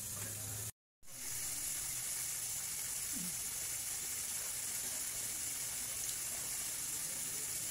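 Steady high-pitched hiss of outdoor background noise, with the sound cutting out completely for a moment just under a second in.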